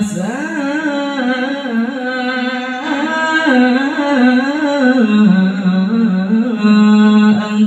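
A male qari reciting the Quran in the melodic tajweed style into a microphone: one voice draws out a long ornamented phrase that glides up at the start and winds up and down in pitch, then settles onto a lower held note about five seconds in.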